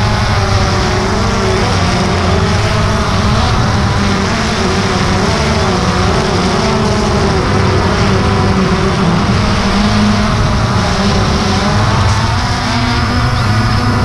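DJI Phantom 2 quadcopter's motors and propellers whirring loud and close, heard from the camera mounted on the drone, the several pitches wavering up and down as the throttle changes in flight.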